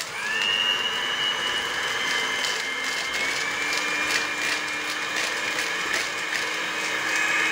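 Midea electric hand mixer spinning up and then running at a steady speed with a high whine, its beaters creaming softened butter and sugar in a plastic bowl, with a few light clicks of the beaters against the bowl.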